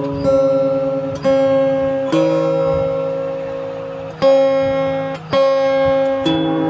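Background music: pitched chords struck sharply and left to fade, roughly one a second.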